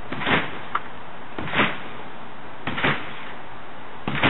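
A person bouncing on a backyard trampoline, each landing on the mat and springs heard as a short sound, four times about a second and a quarter apart, over a steady hiss of rain.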